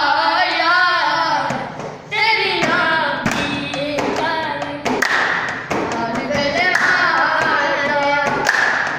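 A boy singing a song without instruments, keeping the beat by drumming his hands on a wooden desk while others clap along.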